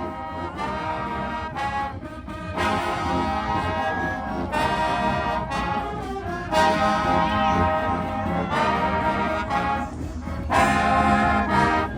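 Marching band brass section playing a run of held chords, each lasting a second or two with short breaks between them.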